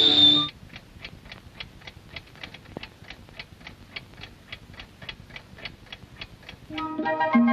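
Clock ticking in a cartoon soundtrack: a quick, even run of ticks, about five a second. Orchestral music cuts off just after the start and comes back in near the end.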